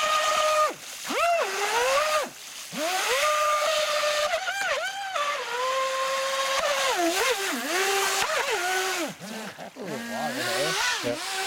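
Traxxas Velineon brushless motor driving an RC jet boat's stock jet drive, giving a high electric whine that rises and falls in pitch as the throttle is worked. It cuts out briefly a few times and ends on lower, slower wavering tones near the end. The owner judges the stock jet too small, with the motor having far more torque than it needs.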